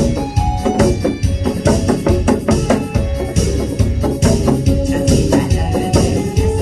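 Instrumental music with a steady drum beat under held keyboard notes: the lead-in of a song before the singing starts.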